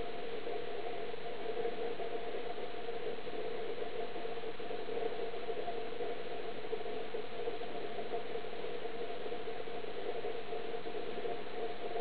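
A steady hum and hiss with no change, and no bird calls standing out.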